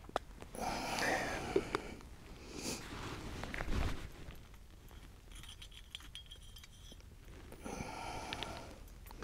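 Small metal cook-kit parts being handled: intermittent rustling with light metallic clicks and clinks.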